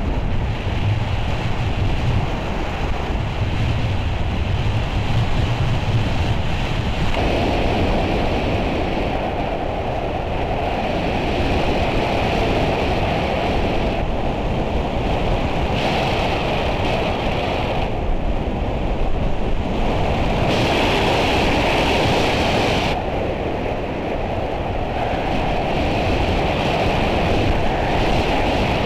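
Loud, steady rush of wind over the microphone of a camera mounted on a hang glider's wing, growing fuller about seven seconds in.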